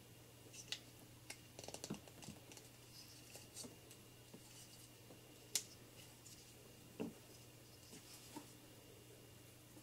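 Plastic Transformers action figure parts clicking and knocking as they are moved and snapped into place by hand during transformation: a few scattered sharp clicks, a small cluster about two seconds in and the sharpest about five and a half seconds in.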